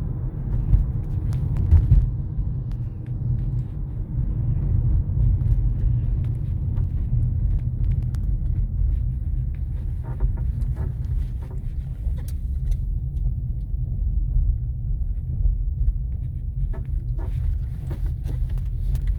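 Skoda Octavia A5 facelift on the move with a steady low rumble, and a few short squeaks from the front end in two clusters, about halfway through and near the end.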